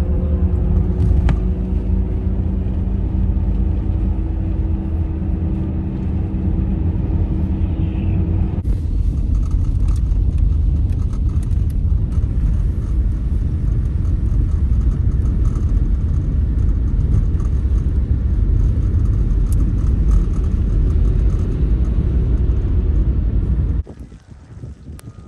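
A car driving, heard as a loud, steady low rumble with an engine hum for the first eight seconds or so. The sound changes abruptly about eight seconds in and drops off sharply near the end.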